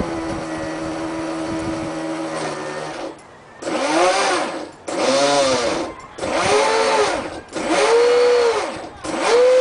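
Water-cooled brushless electric motor of a 32-inch fiberglass RC boat: a steady high whine for about three seconds, then a run of quick revs about a second apart, each rising and falling in pitch as the throttle is opened and closed.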